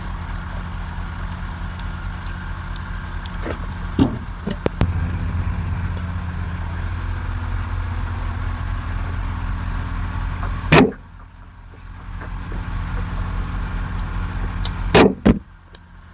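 A steady low motor hum, like an engine running, broken by a few sharp knocks: about four seconds in, about eleven seconds in, and near the end. After the knock at eleven seconds the hum drops away for about a second, then returns.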